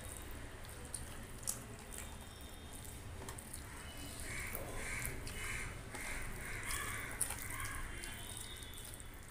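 Fingers mixing rice and kadhi on a steel plate, with small clicks and squishing. From about four seconds in, a bird calls in a quick series of six or so short calls, about two a second.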